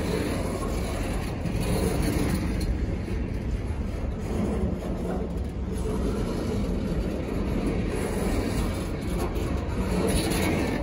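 Freight train of container-loaded flatcars rolling past: a steady noise of steel wheels running on the rails, with faint clicks from the wheels and cars.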